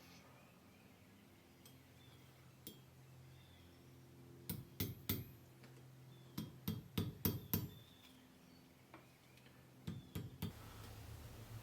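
Light metallic clicks and taps of pliers and hand tools working a small gold ring, bending up its prongs: scattered sharp ticks, a quick run of about eight in the middle and two more near the end, over a faint low hum.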